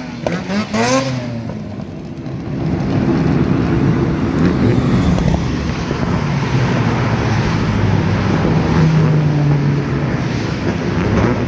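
Car engine running, with a quick rising and falling rev in the first second, then a steady low note that drifts slightly in pitch.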